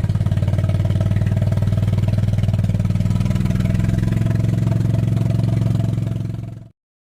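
An engine running steadily with a rapid, even pulse, then cutting off abruptly near the end.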